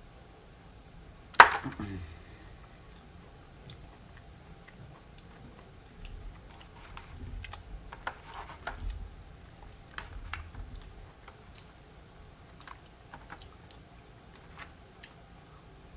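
Close-up chewing and mouth sounds of a person eating a chocolate cupcake with a hard white chocolate coating, with scattered small wet clicks. One sharp, loud click stands out about a second and a half in.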